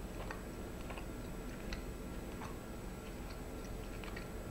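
Faint, slightly irregular soft clicks, about one a second, of a man chewing a bite of chicken and carrot with his mouth closed, over a low steady room hum.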